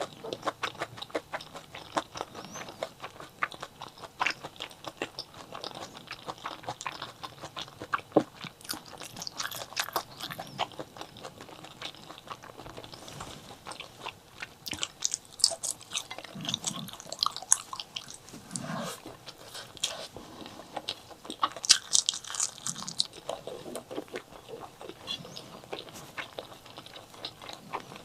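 A person chewing and biting chili peppers with white rice close to the microphone: a dense, irregular run of sharp mouth clicks and crunches.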